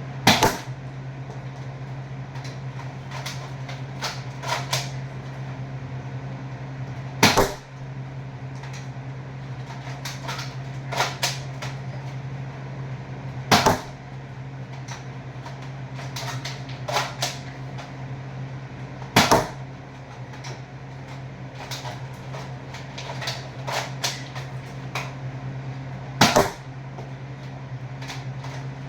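A spring-powered Nerf blaster fired five times, roughly every six to seven seconds, each shot a sharp snap, with quieter clicks of priming and handling the blaster between shots. A steady low hum runs underneath.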